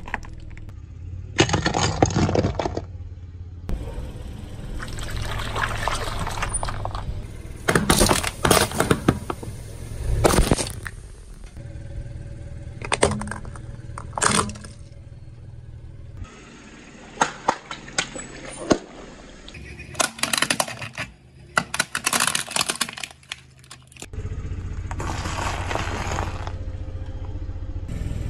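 A car tyre rolling slowly over one object after another and crushing it: clusters of sharp crunches, cracks and pops over the low, steady running of the car.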